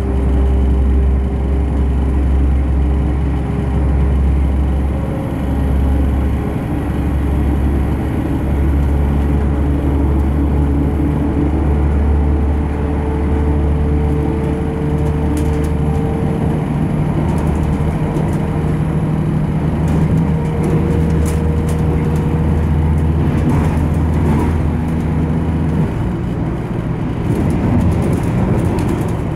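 Class 172 DMU's underfloor diesel engine and ZF Ecomat transmission under power, heard from inside the passenger saloon: a steady deep drone with a thin whine that rises slowly in pitch. About 26 seconds in the deep engine note drops away, and light clicks and rattles come through in the second half.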